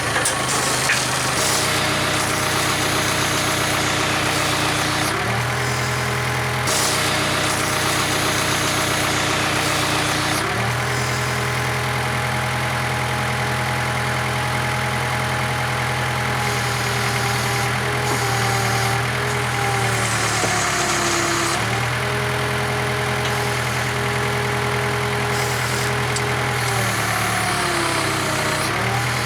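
Diesel engine of heavy farm equipment running throughout, its speed stepping up and down several times as the machine works against a stuck tire. The engine sags briefly about twenty seconds in and again near the end, as if it is being loaded.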